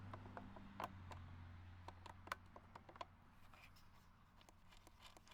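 Faint, scattered clicks of a 13 mm wrench working the license plate bolts loose, over a steady low hum.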